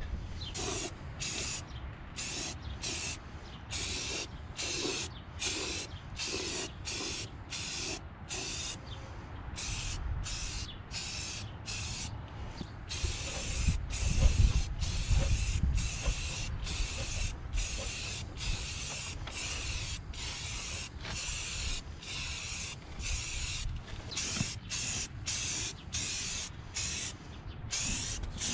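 Aerosol spray can of automotive primer hissing in short bursts, a little more than one a second, as the nozzle is pressed and let go. A low rumble of wind on the microphone swells near the middle.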